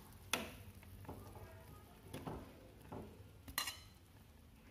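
A utensil knocking and clinking lightly against an aluminium cooking pot and a ceramic plate, about five short knocks spaced across a few seconds, as boiled eggplant is lifted out of the pot.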